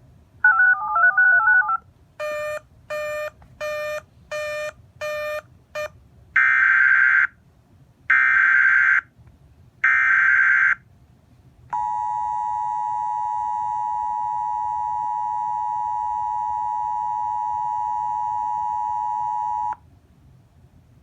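Emergency Alert System signalling between two alerts. First comes a brief warbling run of electronic tones and five quick beeps. Then three data bursts of about a second each, the SAME header of the next alert. Last comes the EAS two-tone attention signal, held steady for about eight seconds before it cuts off.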